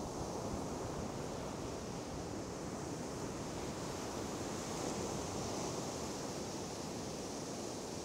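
Steady wash of sea surf breaking on the beach, with some wind noise on the microphone.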